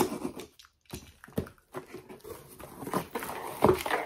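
Packing material and cardboard rustling and crinkling as an item is worked out of a box, with scattered small handling knocks. Near the end comes a brief pitched sound, the loudest thing here.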